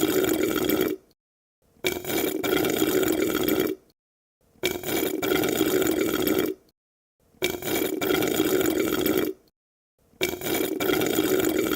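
Drinking through a straw: gurgling sucks of liquid. One suck ends about a second in, then four more follow, each about two seconds long with a short silence between them.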